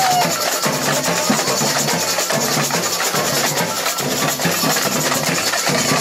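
Live samba bateria playing: surdo bass drums beat a steady repeating pattern under snare drums and hand percussion.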